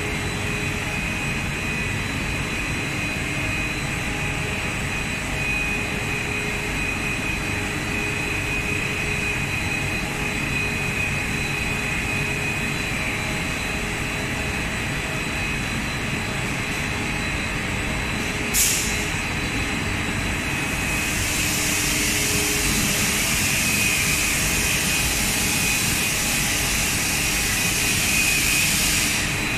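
Steady hum and whine of an ABS plastic sheet extrusion line running, with several held tones. A sharp click comes about two-thirds of the way through, and a loud steady hiss follows for most of the last nine seconds.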